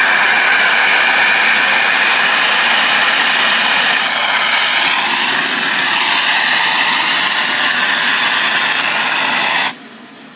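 Compressed air foam firefighting skid discharging through its hose, a loud steady rushing hiss that cuts off suddenly near the end.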